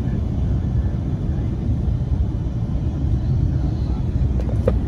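Steady low rumble of road and tyre noise inside the cabin of a moving 2020 BMW 7 Series, with one short chirp near the end.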